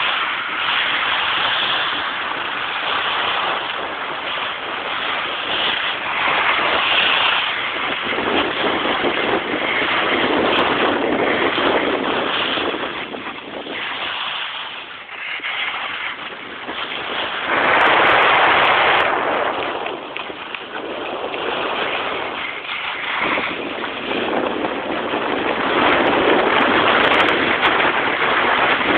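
Rushing, scraping hiss of a snowboard's edges sliding and carving over snow while riding downhill, mixed with wind buffeting the microphone. The noise swells and fades with each turn and is loudest about two-thirds of the way through.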